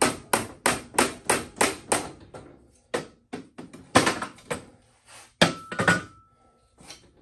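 Hammer blows on the steel front fork and steering head of a Honda XL70, about three a second, to drive the fork out. After about two and a half seconds the strikes slow and come irregularly. One of them, about five and a half seconds in, leaves a brief metallic ring.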